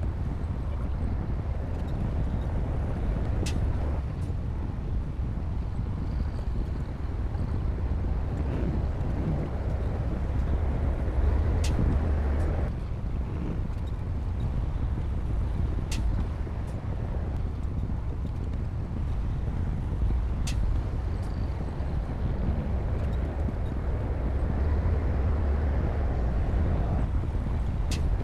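Diesel engine of a Komatsu D60P crawler bulldozer running steadily under load with a deep low rumble that swells and eases, and several sharp metallic clicks scattered through it.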